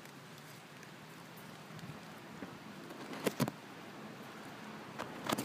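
Leaves and twigs rustling and crackling close to the microphone over a faint even hiss, with a couple of sharp crackles about three seconds in and a louder burst of crackling near the end.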